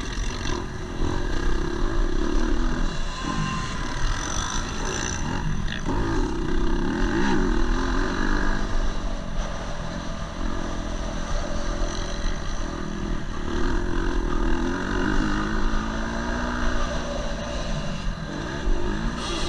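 KTM 250 SX-F single-cylinder four-stroke motocross engine heard from onboard the bike, revving up and down repeatedly as the throttle is opened and closed through corners and straights.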